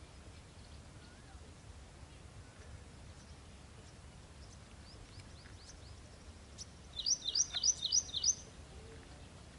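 A bird calls a quick series of about six sharp, high notes, each sweeping downward, about seven seconds in. A few softer chirps come before it, over a faint steady outdoor background.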